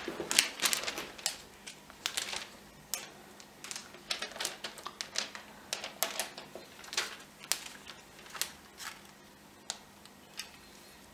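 Thin plastic hydrographic transfer film crinkling and crackling in gloved hands as it is laid onto water: irregular sharp crackles, thinning out near the end.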